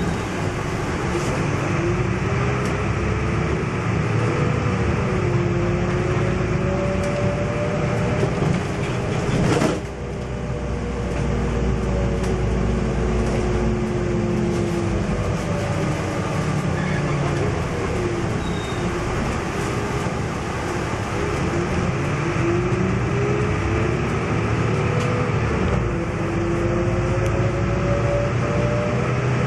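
MAN NL222 city bus under way, heard from inside the passenger cabin: the drivetrain's whine rises and falls in pitch as the bus speeds up and slows, over steady road and engine noise. A sharp knock comes about ten seconds in.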